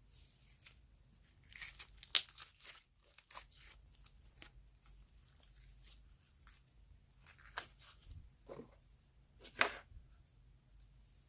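Soft clay slime being pulled apart and worked by hand, making scattered sticky crackles and tearing sounds. The loudest bursts come about two seconds in and again shortly before the end.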